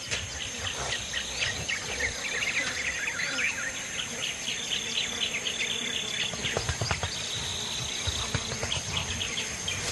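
Forest ambience: a steady high-pitched insect drone with many short bird chirps over it.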